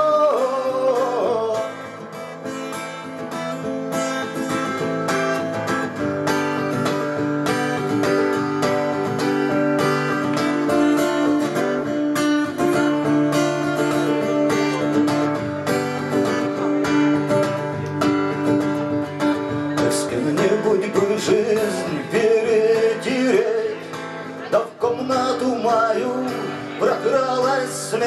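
Acoustic guitar strummed steadily in an instrumental passage of a song, with a man singing into the microphone briefly at the start and again over the last several seconds.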